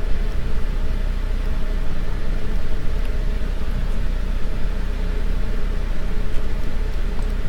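Steady background hum and rushing noise with a deep low rumble, unchanging throughout.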